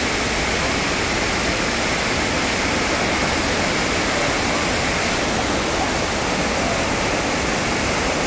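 Water discharging through an open dam spillway gate: a steady, loud rush of falling water with no let-up.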